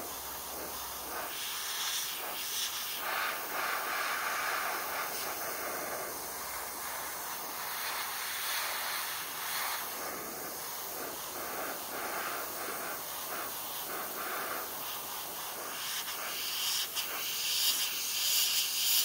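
Airbrush spraying paint: a steady hiss of air that swells and eases in spurts of a few seconds as the trigger is worked, strongest near the end.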